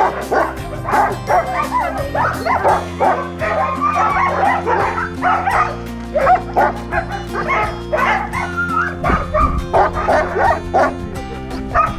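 A yard full of sled dogs (huskies) barking and yipping at once, many short overlapping calls without a break, over background music with steady bass notes.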